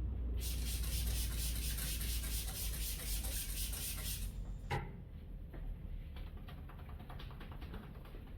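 A brisk, scratchy rubbing sound, like hands working over hair and skin during a massage, lasts about four seconds and stops. Shortly after, there is a single sharp click, then faint scattered ticks.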